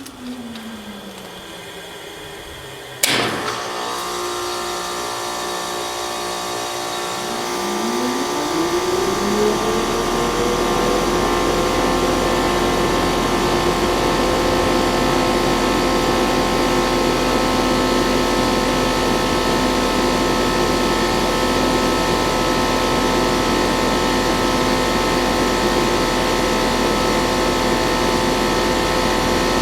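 Trane XL16 heat pump outdoor unit cycling off and back on in heat mode. A fan winds down in falling pitch, a sharp click comes about three seconds in, and from about eight seconds a fan spins up in rising pitch. It then settles into a steady run with a low hum. The quick off-and-on restart is the short cycling the unit is being checked for.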